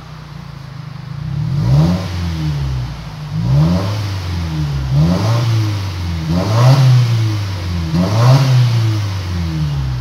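Subaru Forester's flat-four engine revved repeatedly from idle through a modified exhaust with its centre muffler cut out and the ARMA exhaust valve open. There are about five revs, each rising and falling back, roughly one every one and a half to two seconds.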